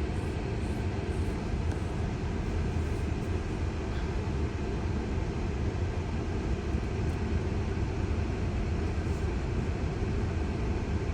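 Steady low rumble of tyres and road heard inside a Tesla's cabin while it drives, with no engine sound.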